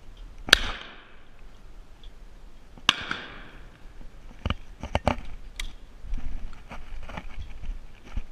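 Two shotgun shots from a 20-gauge side-by-side double, one from each barrel, about two and a half seconds apart, each with a short ringing tail. From about halfway through come metallic clicks and clacks as the gun is broken open, the spent shells thrown out and fresh ones loaded.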